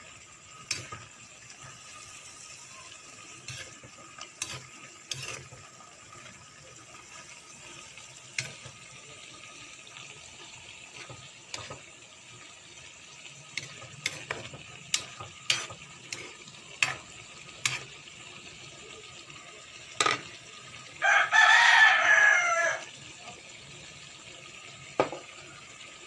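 A cooking spoon clicking and scraping against a wok while vegetables and tofu are stirred, over a steady low hiss. About 21 seconds in, a rooster crows loudly for a second or two.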